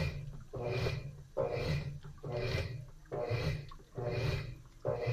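Top-load washing machine agitating a wash load: the agitator swishes the water back and forth in an even rhythm, a little more than once a second, each stroke with a low motor hum.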